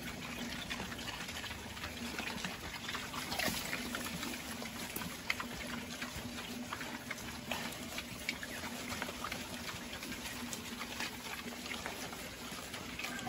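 Pigs feeding at a trough with water in it: steady wet slurping and splashing, dotted with many small clicks.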